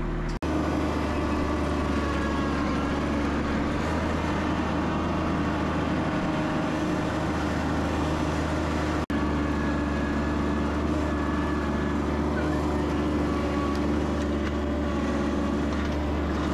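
An engine running steadily at a constant speed. The sound drops out for an instant twice, about half a second in and about nine seconds in.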